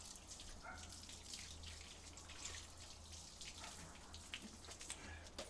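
Faint sound of water running from a garden hose onto wet concrete, over a low steady hum.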